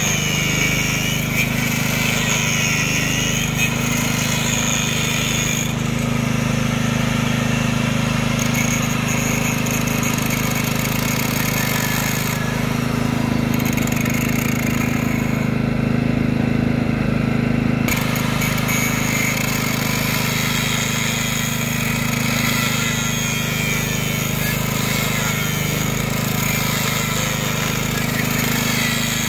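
Electric angle grinder cutting through the bolts of an excavator track shoe that have seized and will not come undone, a continuous grinding with a couple of brief lulls, the longest around the middle. A small engine hums steadily underneath.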